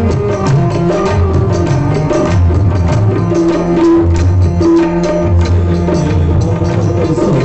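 Tabla played in a steady rhythm: deep bass strokes that bend in pitch alternating with quick, sharp treble strokes.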